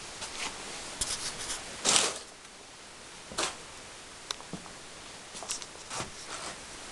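Handling noise: scattered rustles and clicks over a steady hiss, the loudest a short rustle about two seconds in.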